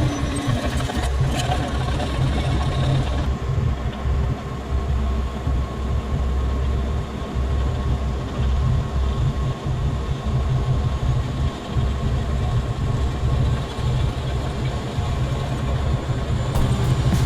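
Large bulldozer's heavy diesel engine running steadily.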